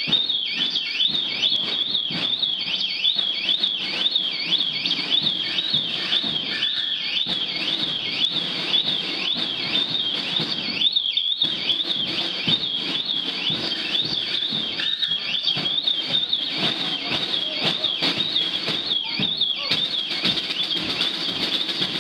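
A high warbling alarm tone that sweeps up and down about twice a second and keeps going without a break, over street noise with many short knocks.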